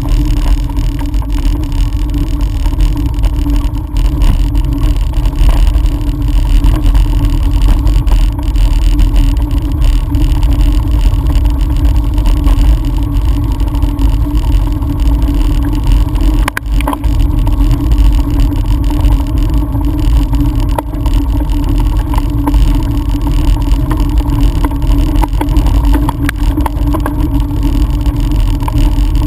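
Strong wind buffeting a handlebar-mounted camera's microphone, a continuous low rumble with a steady hum underneath and a few brief knocks from the mount.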